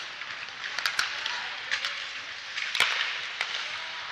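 Ice hockey on the rink: skate blades scraping the ice, with sharp clacks of sticks on the ice and the puck several times. The loudest clack comes about two-thirds of the way through.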